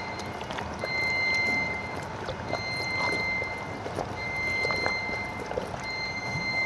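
A high electronic beep sounding about once every second and a half to two seconds, each beep just under a second long, over a steady background noise with scattered small clicks.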